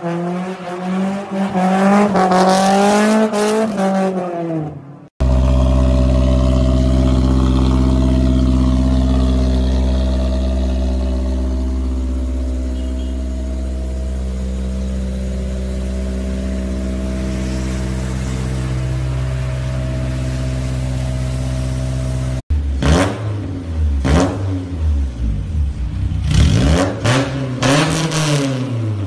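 Honda S2000 four-cylinder engine and exhaust: revving with a wavering pitch for the first few seconds, then running at a steady pitch for about seventeen seconds, then revved again and again through the exhaust near the end, pitch rising and falling.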